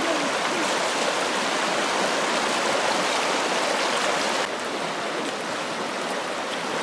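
Shallow rocky river rushing over rapids: a steady rush of water. About four and a half seconds in it drops to a softer, duller flow.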